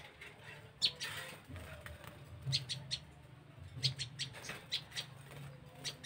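Small caged songbirds giving short, sharp chirps in quick clusters of two or three, repeated several times, while a hand reaches into their wire cage.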